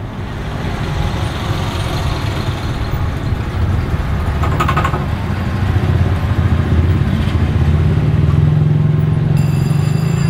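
Diesel locomotive engine running as the locomotive moves along the yard tracks, growing louder as the engine works harder. A brief clatter comes about halfway, and a high whine joins near the end.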